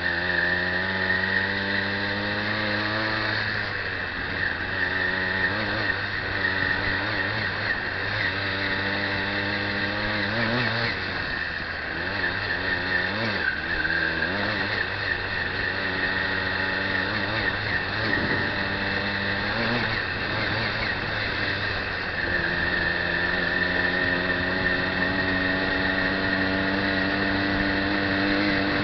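The ridden bike's motor running under way with a steady hum. Its pitch drops in a step about three seconds in and rises again near the end, over a steady hiss of road and wind noise.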